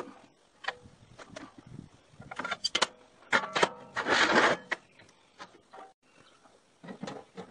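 Steel plate and angle iron knocking and clanking on a steel welding table: a series of sharp metal knocks, some ringing briefly, with a noisier scrape about four seconds in.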